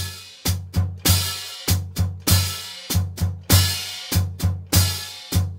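Drum kit played by the feet alone, bass drum and hi-hat pedals, in a repeating syncopated New Orleans–style pattern. Each stroke gives a low bass-drum thud with a ringing wash over it, and many of the strokes come in quick pairs.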